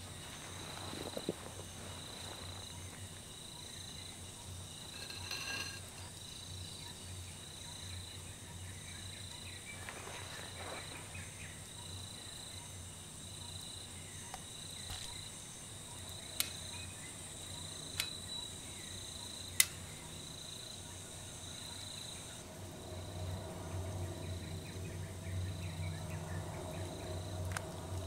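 Crickets chirping in an even, steady rhythm over a low hum that swells near the end. Three sharp clicks come about a second and a half apart past the middle, the last the loudest.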